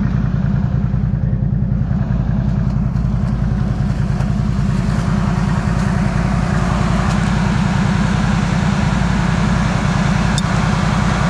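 Off-road vehicle engine running steadily at low revs, heard close up, with a rushing hiss that grows stronger a few seconds in.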